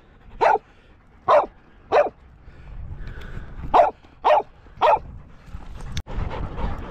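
A dog barking repeatedly: six short, sharp barks, three spaced about half a second to a second apart and then, after a pause, three more in quick succession.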